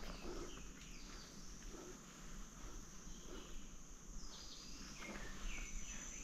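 Faint mountain ambience: insects trilling steadily, with a few short bird chirps now and then.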